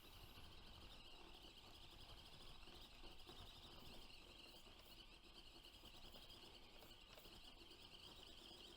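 Faint, steady high-pitched whirr of an Axial SCX24 micro crawler's small electric motor and gears as it crawls up a steep slope.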